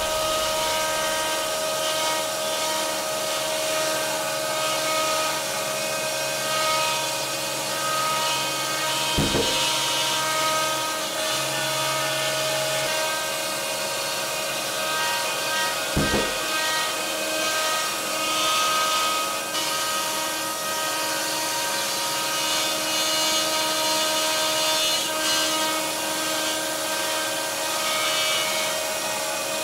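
A CNC router's spindle whines steadily as it cuts through a plywood sheet, with its dust-extraction hose running. There are two brief low thumps, about 9 and 16 seconds in.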